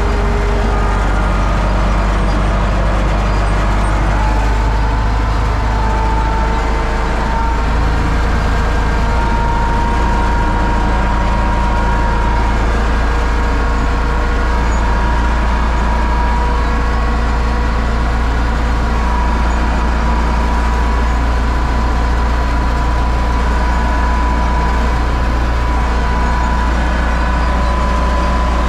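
Universal U650 tractor's diesel engine running steadily, with a high whine over the low engine hum that rises slightly in pitch during the first third, then holds.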